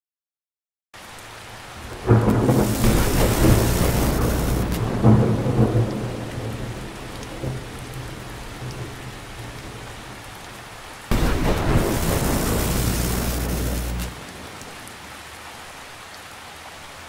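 Thunderstorm sound effect: steady rain hiss with a loud thunderclap about two seconds in that rumbles on for several seconds, and a second clap about eleven seconds in that cuts off sharply about three seconds later.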